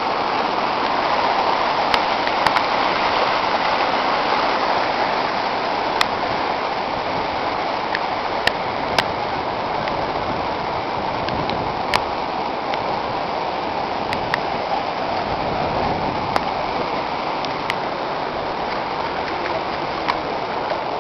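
Floodwater rushing steadily, a dense even roar of water with scattered sharp clicks every second or two.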